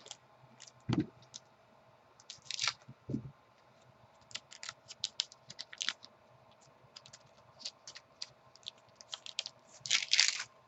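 Trading cards and a foil pack wrapper being handled: scattered light clicks and rustles, with louder crinkling twice, about two and a half seconds in and near the end. Two soft thumps come early on.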